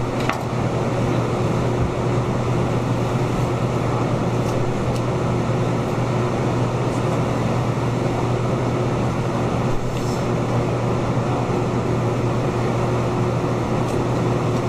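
Steady low machine hum over an even rushing noise, with a few faint clicks about a second in, near the middle and near the end.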